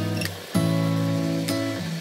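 Background music: acoustic guitar strumming chords, each held about a second, without singing.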